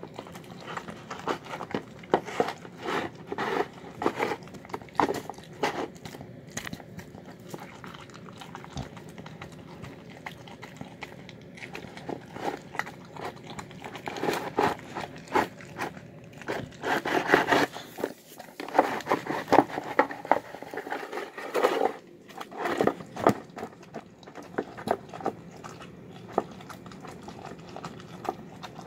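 Dog eating a meal of dark-meat chicken, green beans and white rice from a bowl: irregular bites, chewing and smacking, busier and louder in the second half.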